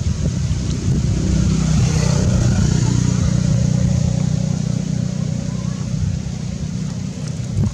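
Motor vehicle engine rumbling as it passes, swelling about a second in, loudest through the middle and easing off near the end.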